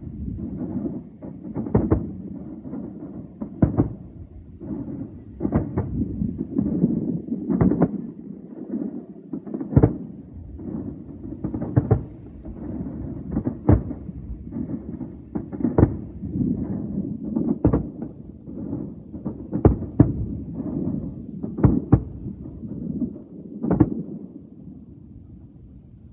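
Fireworks display: aerial shells bursting in quick, irregular succession, some twenty sharp bangs over a continuous low rumble of overlapping bursts and their echoes.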